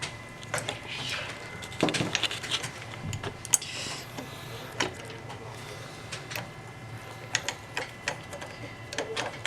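An Allen key driving screws into a metal adapter: irregular small metallic clicks and taps, with a brief scrape about four seconds in.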